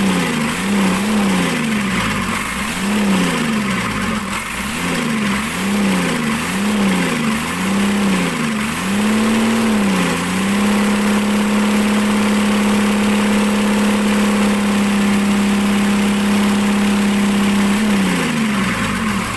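Mitsubishi Fuso Fighter's 6M61 inline-six diesel engine being revved in quick throttle blips about a dozen times, then held at raised revs for about eight seconds and let fall back toward idle near the end. It is being test-run after a hard-starting repair.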